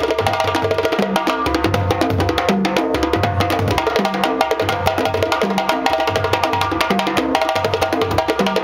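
West African drum ensemble: a djembe solo, hand-played with fast slaps and tones, over accompanying djembe and dunun bass drums beaten with sticks. The deep dunun notes repeat in a steady driving rhythm.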